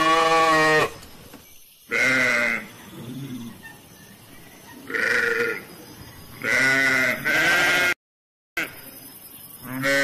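Sheep bleating: five separate calls of about half a second to a second each, at differing pitches, with a further call starting at the very end.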